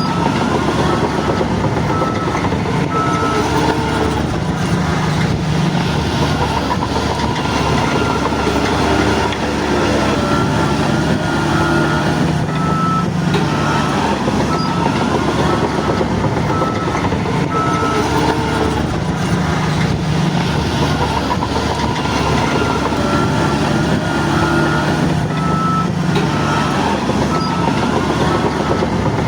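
Shantui DH17 bulldozer's diesel engine running under rising and falling load, with a reversing alarm beeping at an even rate.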